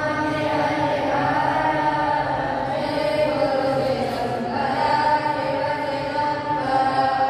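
Group of boys chanting a devotional aarti in unison, long held notes that step to a new pitch every second or two.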